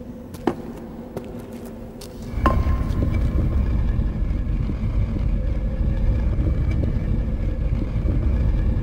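Dark ambient film sound design: a few sharp clicks, then about two and a half seconds in a single ringing strike. A deep rumbling drone swells in after it and holds, with faint steady high tones over it.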